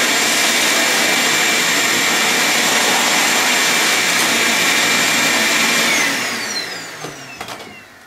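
Vacuum cleaner running steadily with a high whine as it sucks the leftover beans out of a coffee grinder's bean hopper. About six seconds in it is switched off and the motor winds down, its whine falling in pitch as the noise fades.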